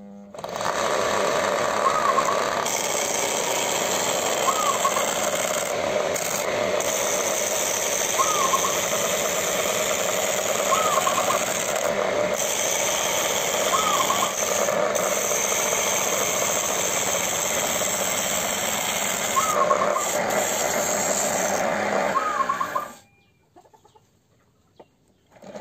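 Homemade wood lathe driven by an old water-pump motor, running steadily with the hiss of wood being cut. It stops abruptly near the end. Short bird chirps sound every few seconds over it.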